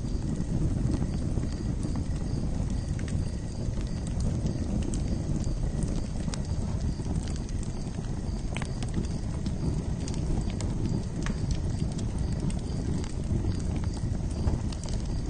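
Campfire crackling: a steady low rumble of burning wood with irregular small pops and snaps scattered throughout.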